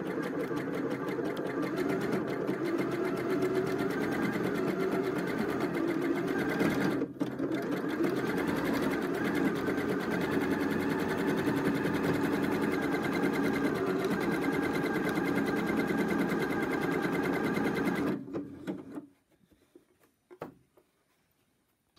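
Electronic sewing machine running steadily at an even, rapid stitch rate, sewing a decorative embroidery stitch over gathered fabric for machine smocking. It dips briefly about seven seconds in, then stops about eighteen seconds in.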